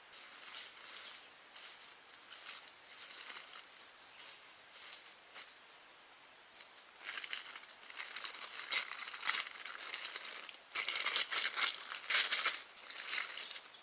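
Irregular crinkling and rustling, like something being handled or crumpled, soft at first and growing louder and busier in the second half.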